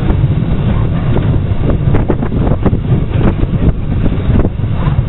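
Wind rumbling on the microphone over the running of a steam-hauled train: LSWR Beattie 2-4-0 well tank 30587 and the brake van coupled to it, with scattered clicks and knocks.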